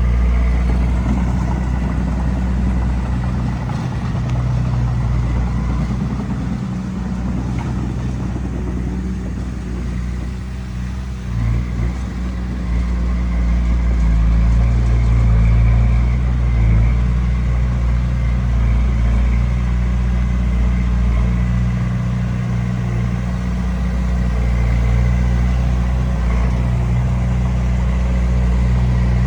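Komatsu D20P bulldozer's diesel engine running steadily under load. It eases off briefly about ten seconds in, then pulls harder again.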